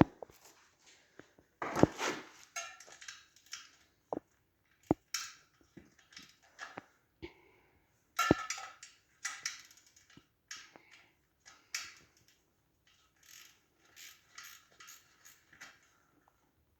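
A ratcheting wrench clicking in short runs and metal tools clinking as a nut is backed off a dirt bike wheel.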